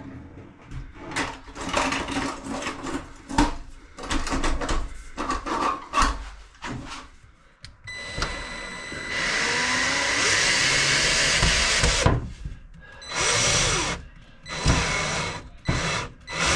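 Knocks and clatter of a stainless steel sink being handled and set into a stone benchtop cutout. About eight seconds in, an Ozito cordless drill driver starts up. It runs for about three seconds, then gives several short bursts as it tightens the screws of the sink's mounting clips.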